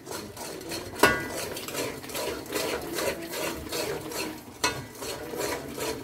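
A spoon stirring and scraping thick frying masala around a cooking pot, with a sharp clink against the pot about a second in and another near the end. The masala is being fried down (bhunai) with gram-flour powder mixed in.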